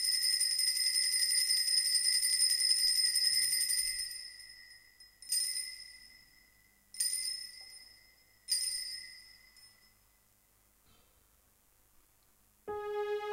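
Altar bells ringing at the elevation of the chalice after the consecration: a continuous shaken ringing that stops about four seconds in, then three single rings about a second and a half apart, each dying away. Music starts near the end.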